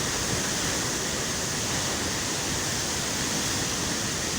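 Murchison Falls, where the Nile drops through a narrow gorge, giving a steady, unbroken rush of falling water.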